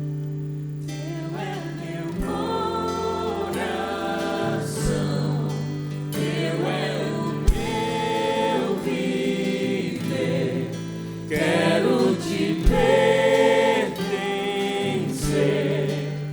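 Catholic worship music: voices singing a hymn refrain to the Virgin Mary over a band with held keyboard and bass chords and a few drum hits.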